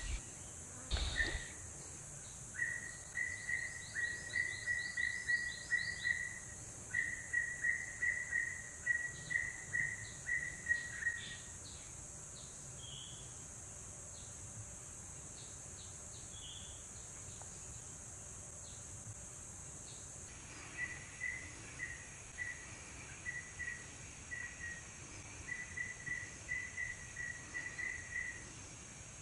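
Tropical forest ambience: a steady high-pitched insect drone, with two long runs of quick, evenly repeated chirps. There is a short knock about a second in.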